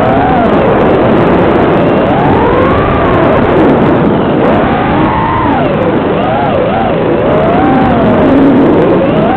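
FPV quadcopter's brushless motors and propellers whining, the pitch sweeping up and down again and again as the throttle is worked in flight.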